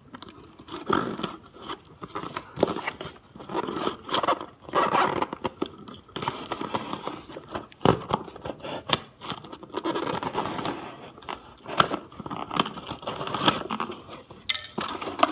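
A serrated knife scraping and sawing through packing tape on a cardboard box, with crackling of tape and cardboard and sharp clicks. Near the end the cardboard flaps are pulled open.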